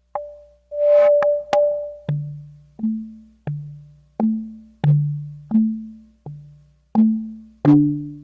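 Expressive E Osmose synthesizer playing a patch of short, woody plucked notes, each with a click at the start and a quick decay. A higher held note opens, then a low bass line alternates between two notes about every 0.7 seconds.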